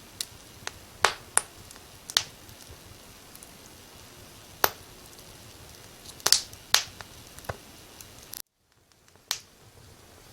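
Wood fire crackling: about ten sharp, irregular pops over a steady hiss. Near the end the hiss cuts out abruptly for about a second before the crackling resumes.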